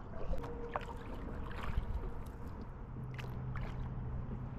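Water gurgling and lapping against a canoe's hull close to the microphone, with a few sharp drips and small splashes. A low steady hum comes in about three seconds in.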